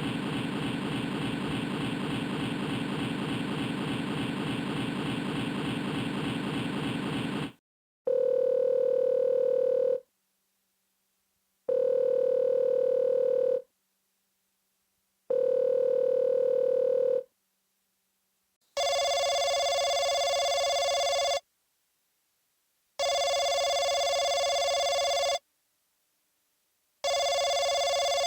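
Electronic sound effects from a Yamaha YPT-300 Portatone keyboard. A rough, buzzy effect cuts off about seven seconds in. Then come three steady two-second beeps like a telephone line tone, and then three longer electronic telephone rings with short pauses between them.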